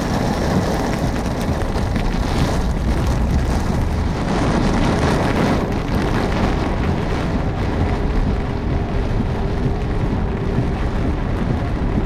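Torrential rain pelting the roof and windshield of a moving car, heard from inside the cabin, over the road noise.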